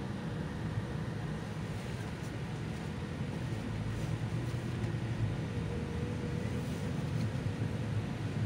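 Cabin noise inside a Solaris Urbino 18 III articulated city bus: a steady low engine and road rumble that grows a little louder about halfway through.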